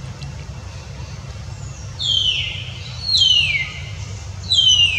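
Baby macaque crying: three high-pitched calls about a second apart, each falling in pitch, with the last the loudest. A steady low rumble runs underneath.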